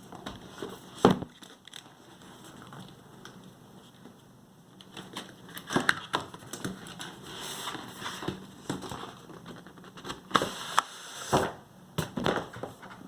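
Cardboard box being opened and handled: cardboard scraping and rustling, broken by sharp knocks about a second in and several more near the end.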